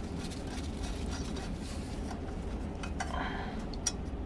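Light clicks and taps of metal outboard gear-case parts being worked by hand, with one sharper click near the end, over a steady low hum.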